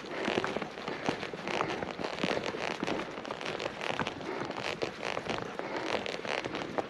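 Wheels of a husky-drawn kick scooter rolling fast over a snowy forest trail, crunching and crackling steadily with many small clicks.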